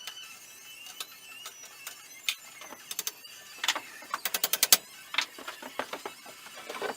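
Scattered metallic clicks and knocks of hand-tool work, with a quick run of about eight rapid even clicks a little past four seconds in.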